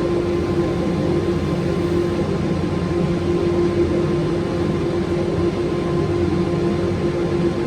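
Makita electric belt sander running steadily on wood, a constant motor whine over the rasp of the belt.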